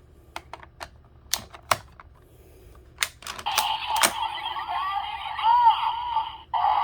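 Several sharp plastic clicks from a Kamen Rider Vistamp toy's buttons being pressed, then, from about three and a half seconds in, the toy's electronic sound effects and music playing through its small, tinny speaker, with a brief break near the end.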